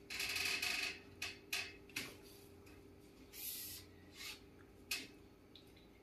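Rubbing and rustling of hands and clothing against skin and the padded treatment table during a chiropractic adjustment, with a few short sharp clicks.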